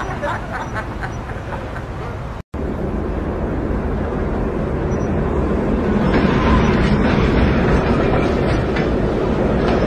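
A train rumbling past, the steady rumble growing louder through the second half. Faint voices come before it, and the sound cuts out for a moment about two and a half seconds in.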